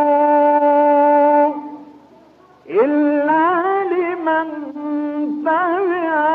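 Male voice reciting the Quran in melodic tajweed style in maqam Bayati. A long note is held on one pitch and fades out about a second and a half in, then after a short breath a new phrase swoops up and wavers through melismatic ornaments.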